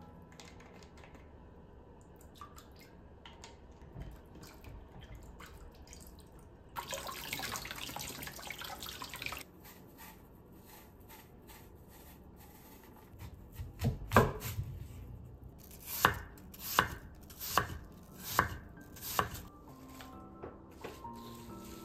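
Kitchen tap running for about three seconds. Later comes a knife chopping apple on a wooden cutting board: about seven firm strokes at a slow, even pace.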